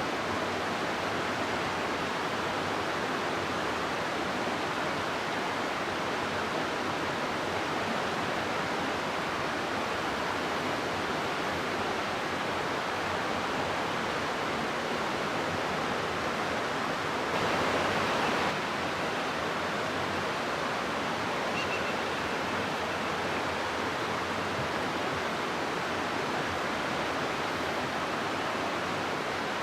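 River water rushing steadily through a rocky gorge, an even hiss of flowing water that swells slightly for about a second midway.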